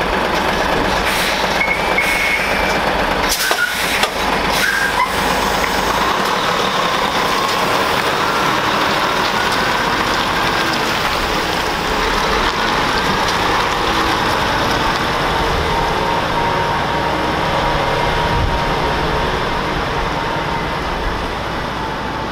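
Heavy diesel tractor-trailer running and pulling away, a steady loud engine and rolling noise, with a few short sharp clicks about three to four seconds in.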